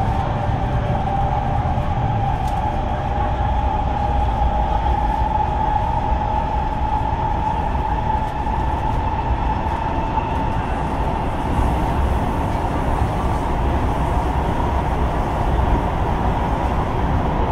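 Kawasaki C151 MRT train running at speed, heard from inside the carriage: a steady low rumble of wheels on rail with a high whine held throughout that drifts slightly upward.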